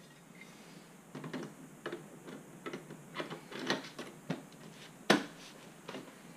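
Irregular light clicks and knocks of a metal mounting bracket being handled and set down on the plastic back of a monitor, with one sharper knock about five seconds in.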